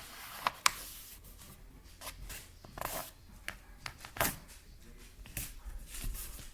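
A sheet of printer paper being handled and folded: rustling and crinkling, with a couple of sharp clicks about half a second in and short rustles through the rest.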